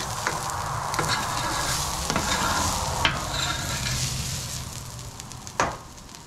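Metal spatulas scraping and clacking across the steel top of a Blackstone griddle, over a steady sizzle of cabbage shreds left on the hot surface. A few sharp metal-on-metal clacks stand out, the loudest about five and a half seconds in.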